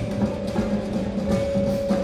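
Indoor percussion ensemble playing: mallet keyboards and drums in a regular pulse over held notes.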